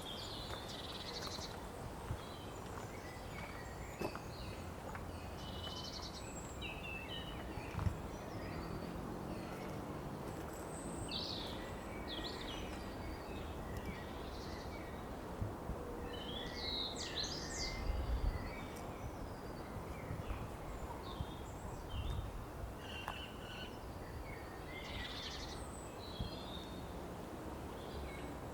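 Cemetery ambience: songbirds chirping and trilling off and on over a steady low background rumble, with a few faint knocks.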